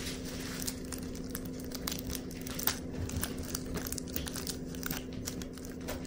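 Crinkly foil ball toy crackling in irregular little bursts as a kitten mouths and paws at it.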